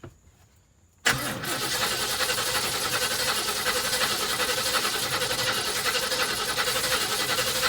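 1976 GMC Motorhome's Oldsmobile 455 V8 being cranked on its starter, starting abruptly about a second in and running steadily without catching, as fuel is still being drawn through the newly fitted fuel pump and filter.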